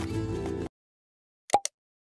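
Background music that cuts off abruptly under a second in, then silence, then a short double pop near the end: the click effect of a subscribe-button animation.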